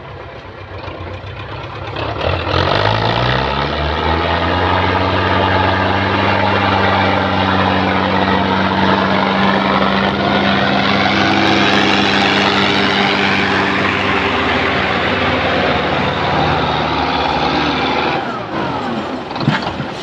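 Belarus 510 tractor's diesel engine revving up about two seconds in, then running hard and steady while pulling a heavily loaded sugarcane trolley. The engine sound drops away near the end.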